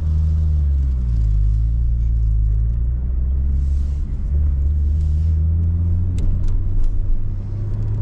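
Nissan Skyline R34 GT-R's RB26 twin-turbo straight-six heard from inside the cabin while driving, running quiet and smooth with its note dipping and rising a little as the revs change. A few light clicks come near the end.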